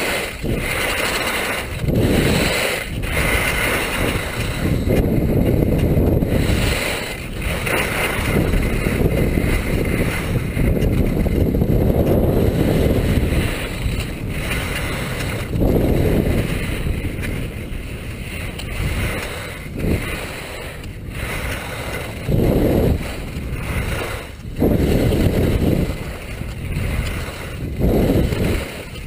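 Wind buffeting the microphone and touring skis hissing over snow on a downhill run, the rush swelling and dropping in irregular surges.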